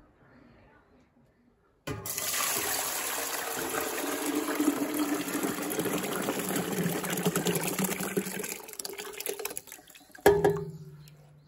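Wet grain and water poured from a steel container into a large stainless steel stockpot: a sudden steady rushing pour lasting about six seconds that trails off, then a single metallic clunk near the end that rings briefly.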